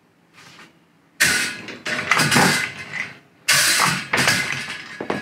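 Hand-lever french fry cutter pressing a potato through its metal blade grid: several noisy strokes of the lever and blades, starting about a second in.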